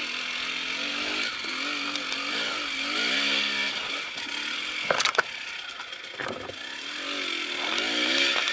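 Enduro motorcycle engine revving up and down as it is ridden, with a couple of sharp knocks about five seconds in.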